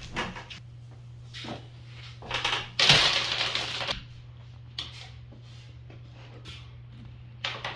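Stringy pumpkin pulp and seeds being ripped out of a hollowed pumpkin by hand: scattered short crackles and wet tearing, with a louder, longer stretch of it about three seconds in. A steady low hum runs underneath.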